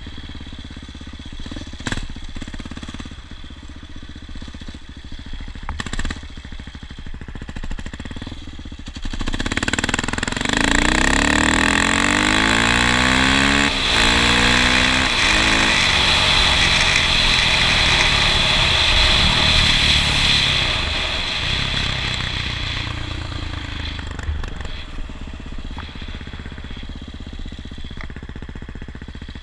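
A vehicle engine running steadily, with a louder vehicle passing close by from about nine to twenty seconds in, rising and then fading away.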